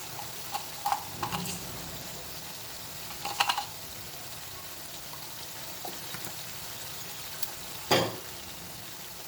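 Tomatoes sizzling steadily in a pan on a high flame, with a spoon stirring and knocking against the pan a few times. The loudest knock comes near the end.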